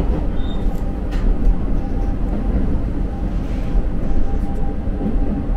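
Moka Railway diesel railcar running along the line, heard from inside the cabin: a steady rumble of the diesel engine and the wheels on the rails.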